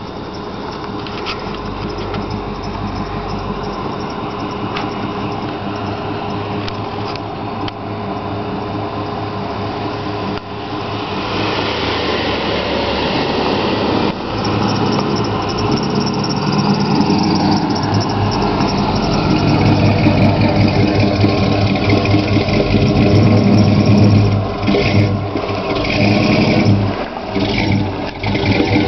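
Cars driving slowly past on a paved road, engines running. The sound grows louder over the second half as a Chevrolet El Camino passes close by, its engine loudest in the last third.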